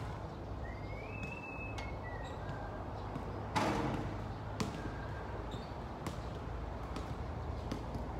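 Outdoor city background: a steady low rumble of traffic with scattered sharp knocks, and a louder, noisy sound lasting about half a second about three and a half seconds in.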